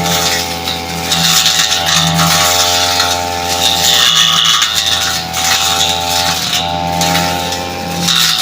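Brush cutter engine running at high speed while cutting brush, with bursts of hiss as it chews through vegetation; its pitch dips briefly under load about two-thirds of the way in, then picks back up.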